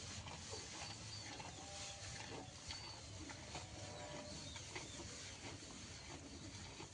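Quiet cattle-pen ambience: many short, high bird chirps, a few faint held calls and scattered soft knocks and rustles over a low steady hum.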